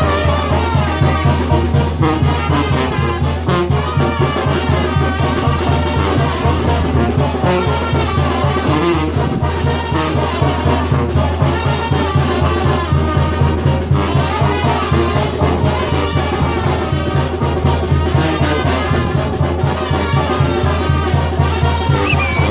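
Loud brass band music, trumpets and trombones over a steady beat, playing for the carnival dancers.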